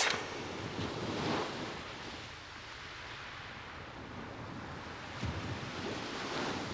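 Sea waves washing on a shore: a steady surf noise with some wind. A brief, loud rush of sound right at the start.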